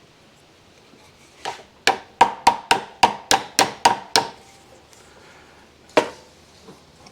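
A hammer tapping a stuck part on a Yamaha YL2C Trailmaster front fork to drive it loose: a quick run of about ten sharp metallic taps, roughly four a second, starting about a second and a half in, then one more strike near the end.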